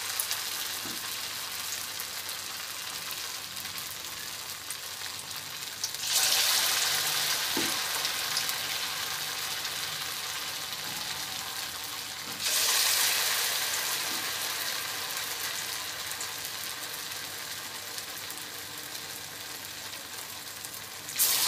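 Portions of a flattened-rice (chire) and rice-flour mixture sizzling as they deep-fry in hot oil in a steel kadai. The sizzle jumps sharply louder each time another portion drops into the oil, about six seconds in, at about twelve and a half seconds, and just before the end, and eases off between drops.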